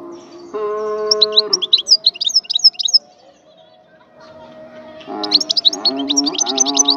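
Wild European goldfinch singing: two bursts of quick, high twittering chirps and trills with a quieter gap of about two seconds between them. Background music with sustained notes plays underneath.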